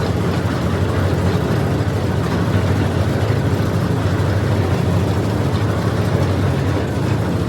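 Borewell drilling rig's engine running steadily, a loud low drone with no breaks.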